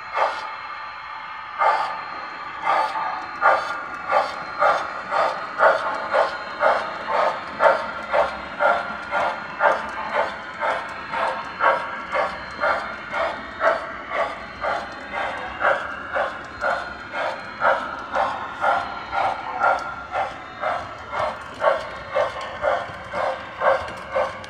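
Electronic railroad-crossing bell from a Lionel crossing-sign coin bank, dinging over and over: a few spaced dings at first, then a steady run of about two dings a second.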